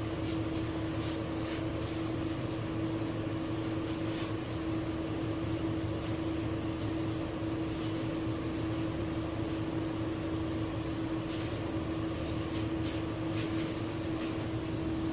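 Commercial refrigerator running with a steady hum that carries one constant tone, its fan and machinery powered up, with a few faint clicks from handling.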